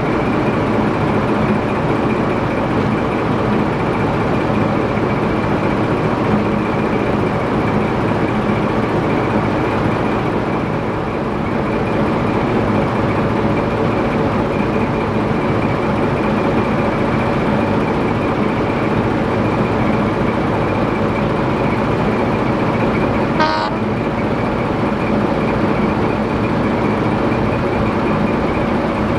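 Heritage diesel locomotive engine running steadily. About 23 seconds in there is a brief high-pitched squeal.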